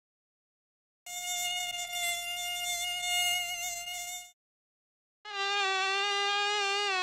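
Mosquito buzzing: a steady high whine for about three seconds starting a second in, then after a short gap a second, slightly lower whine that wavers a little in pitch, starting near the end.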